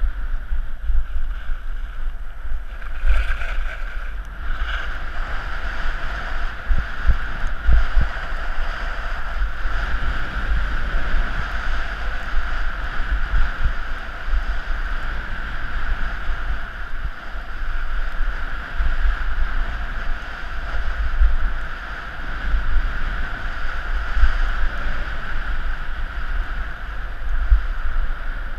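Wind buffeting a helmet-mounted camera's microphone as a skier slides down a groomed slope, in gusty low rumbles over a steady hiss of skis on packed snow.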